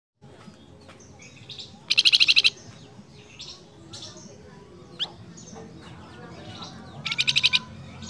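Caged male flamboyan bird (tledekan jati) singing: two loud, fast trills of about ten repeated notes each, about two seconds in and again near the end, with softer chirps between. A male's call to its female.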